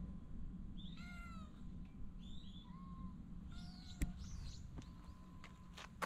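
A cat meowing: three short meows about a second apart, with two sharp clicks, one about two-thirds of the way through and one near the end, over a low steady rumble.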